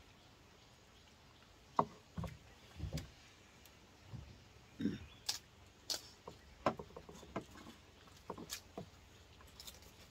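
Scattered light clinks and dull knocks of spoons and bowls being handled while people eat off a wooden floor. There are about a dozen irregular taps, starting about two seconds in.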